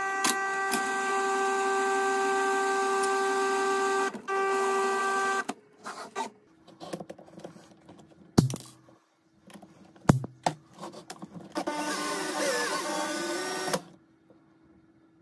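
Cordless drill motor running steadily, winding steel wire onto a threaded rod into a coil spring, briefly let off about four seconds in. Then come scattered clicks and a sharp snip as side cutters cut the wire. After that the drill runs again for about two seconds with a wavering pitch.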